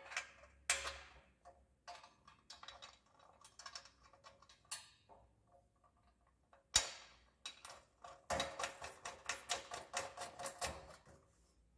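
Light metal clicks and taps from a steel mounting plate sliding and seating inside a sheet-steel stand rail while a bolt is fitted by hand. There is a sharper clack about seven seconds in, followed by a quick run of clicks lasting a couple of seconds.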